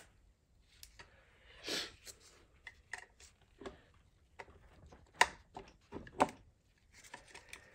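Scattered metallic clicks and clinks of ZF 8HP transmission parts and tools being handled during hand disassembly, with a sharp click about five seconds in and another about a second later.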